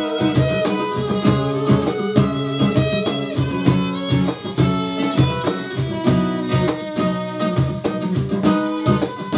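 Live acoustic folk band playing an instrumental passage: a bowed violin melody over strummed acoustic guitar, with hand percussion keeping a steady beat.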